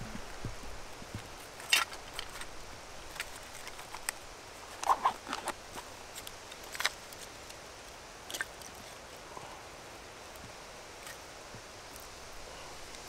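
Split wooden kindling sticks clacking and knocking together as they are handled and stacked onto a log to build a fire lay: a scattering of short, sharp wooden clicks, the loudest about two seconds and five seconds in, over a faint steady hiss.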